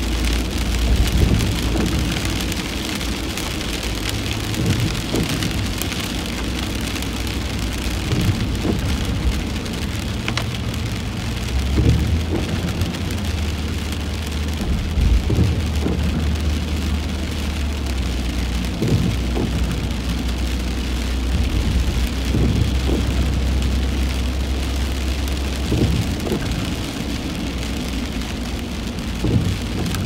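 Rain falling on a car's roof and windscreen, heard from inside the cabin, over a steady low hum of the engine and road. A low thump comes every three to four seconds.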